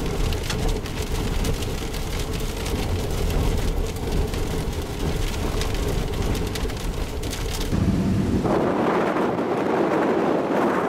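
Heavy rain pelting a vehicle, a dense patter of drops over a low rumble. About eight seconds in it changes abruptly to strong storm inflow wind buffeting the microphone.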